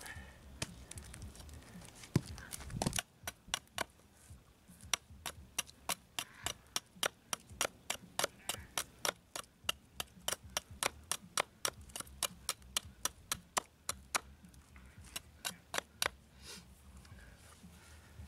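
A knife chopping into wood with a long run of sharp, evenly spaced knocks, about two to three a second, which stop near the end.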